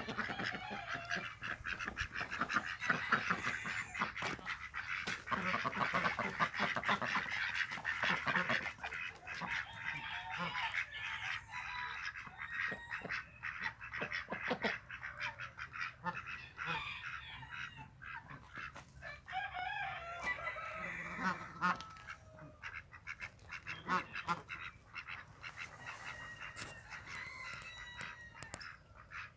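A flock of birds calling, many at once in a dense clamour that is thickest for the first ten seconds or so, then thins out into fewer, separate calls.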